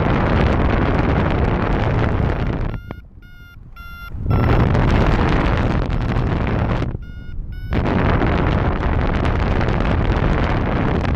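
Wind buffeting the microphone of a paraglider in flight. The wind drops away twice, about three and seven seconds in, and a quick run of short electronic beeps from a flight variometer comes through, about three a second. That beeping is how a variometer signals that the glider is climbing.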